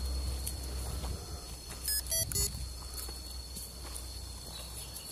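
Footsteps on a dry dirt trail, with a steady high drone of forest insects behind them. Two short high-pitched chirps come about two seconds in.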